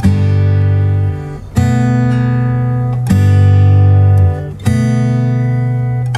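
Background music: an acoustic guitar strumming a sustained chord about every second and a half.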